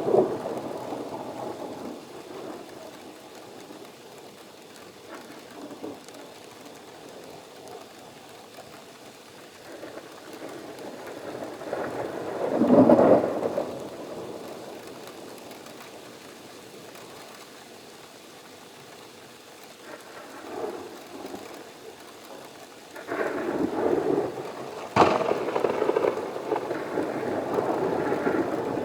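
Thunderstorm: steady rain with rolling thunder. A rumble fades out at the start, another swells about thirteen seconds in, and late on a sharp crack of thunder is followed by loud rumbling.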